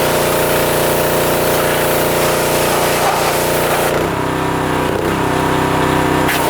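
Small-engine pressure washer running, with the hiss of its spray. About four seconds in the spray stops for roughly two seconds and the engine note changes, as when the wand's trigger is let go, then the spray starts again.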